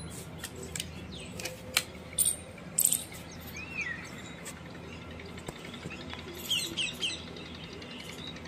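Small birds chirping in short, sharp bursts, loudest about two and three seconds in, with a rising-and-falling whistled call near the middle and a quick run of chirps near the end, over a faint steady low hum.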